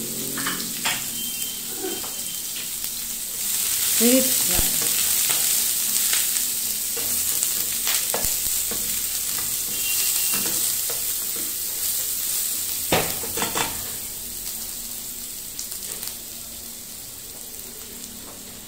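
Chopped onion, garlic and green chili sizzling in hot oil in a non-stick frying pan, stirred with a spatula that scrapes and taps against the pan now and then. The sizzle grows louder a few seconds in and fades toward the end.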